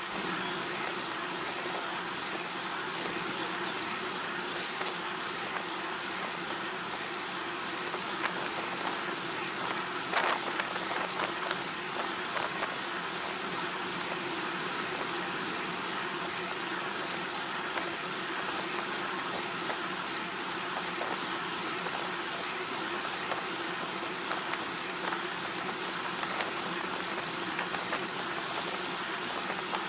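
Steady running noise of a vehicle on the move: an even engine-and-road drone with a constant low hum. A brief click comes about four and a half seconds in, and a short knock around ten seconds.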